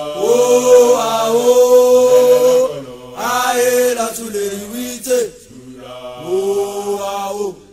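Voices chanting an initiation song in three long phrases of held notes, each phrase ending with a falling glide.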